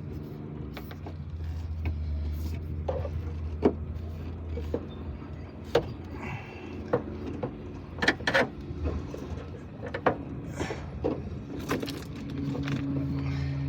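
Scattered sharp metal clicks and knocks from trying to work a car jack with an improvised tool that does not fit, over a steady low drone.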